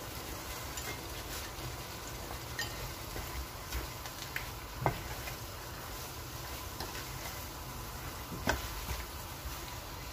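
Pepper, onion and tomato base frying in palm oil with a steady sizzle, as pieces of dried and grilled fish are stirred in with a wooden spoon. The spoon knocks sharply against the pan about five seconds in and again about eight and a half seconds in.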